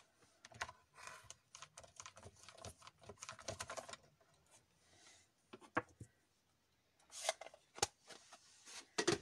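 Hard plastic clear-stamping tools, stamp and acrylic block, handled on a craft table: a quick irregular run of light clicks and taps for about three seconds, then a few single clicks.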